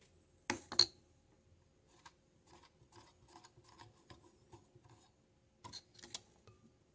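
Hand handling inside an open amplifier chassis, fingers pushing wires and components aside. It gives two sharp clicks about half a second in, a run of light scratchy ticks about three or four a second, then two more clicks near the end.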